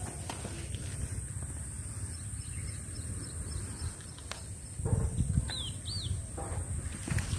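Rural outdoor ambience: a bird calls with short arched notes twice about five and a half seconds in, over a steady high insect whine. A low rumble swells briefly about five seconds in.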